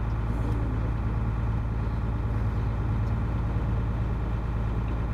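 Boat engine running steadily, heard from on board: a constant low drone that neither rises nor falls.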